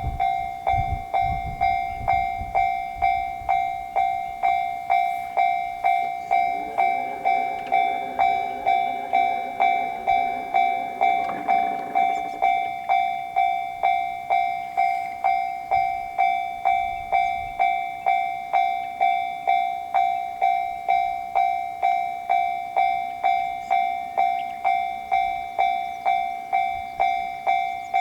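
Japanese railroad crossing warning bell ringing its electronic "kan-kan" in an even rhythm, a little under two strikes a second. The low rumble of a train fades out in the first couple of seconds, and a second pitched sound with several tones swells from about six seconds in and stops suddenly about twelve seconds in.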